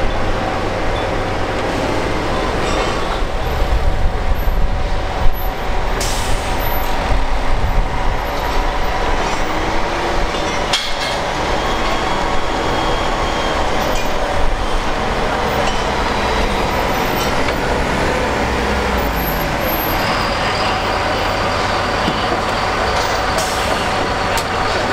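Heavy diesel engine of a Caterpillar D7 crawler dozer running steadily with a deep rumble, with a few metallic knocks and clanks, the loudest about five seconds in.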